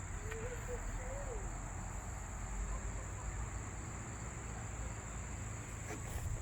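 Steady high-pitched drone of insects, such as crickets or cicadas, over a low rumble.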